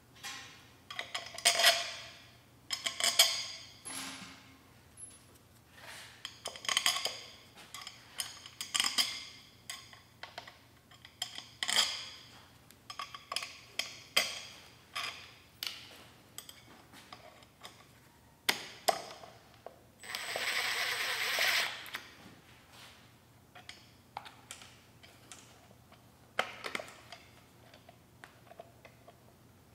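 Small metal clinks and clicks of steel bolts, sockets and a ratchet extension being picked up, set down and threaded by hand into an aluminium motor end bell, in short separate bursts. About two-thirds of the way through, a steady whir lasts about two seconds.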